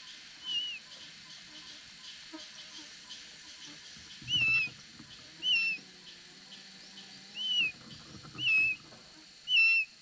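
Eagle at the nest giving short, high whistled calls, each a single note that slurs downward. It calls six times, once early and then five times in quick succession over the last six seconds, getting louder toward the end.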